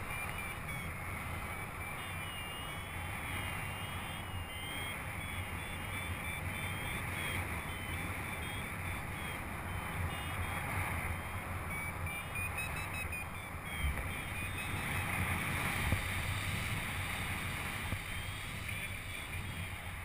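Steady rush of wind over the microphone of a camera on a paraglider in flight.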